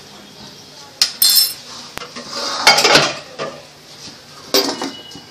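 Metal clinks and clatter of utensils against a steel pan and a small steel bowl of charcoal set in it for charcoal-smoking cooked chicken (dhungar). There are two sharp clanks, about a second in and past four seconds, and a louder hissing rush around the three-second mark.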